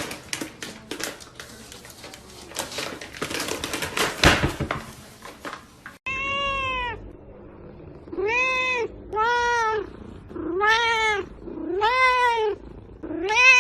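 A house cat meowing repeatedly, six drawn-out meows that each rise and fall in pitch. Before them, for the first half, there is a scatter of clicks and rustling knocks.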